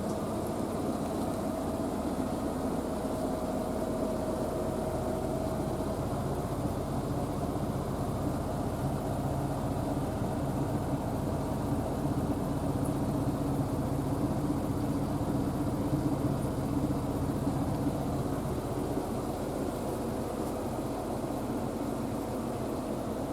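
Steady machine hum with several held tones and no change in level, from a running household appliance or fan.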